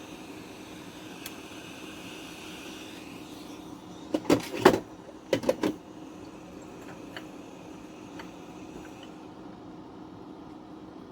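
Handling clatter on a workbench during soldering work: two short bursts of knocks and rattles about a second apart, over a steady hiss.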